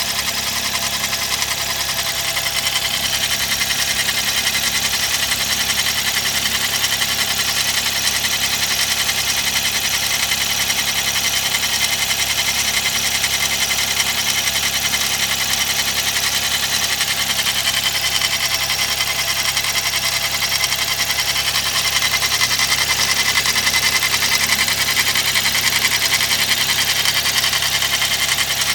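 Suzuki K6A turbocharged three-cylinder engine idling steadily during a cold morning warm-up, with an abnormal fast mechanical ticking clatter over the running, which the owner suspects comes from the camshaft.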